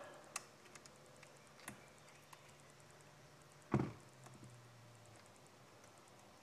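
A few light clicks and one louder knock a little under four seconds in: a chainsaw's chain and bar being handled while the chain is worked onto the bar and drive sprocket.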